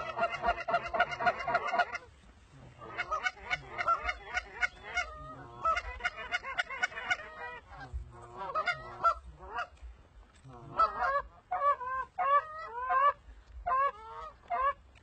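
Canada geese honking: a dense, overlapping chorus of honks for the first two seconds, then repeated separate bursts of honks and clucks as the flock comes in low.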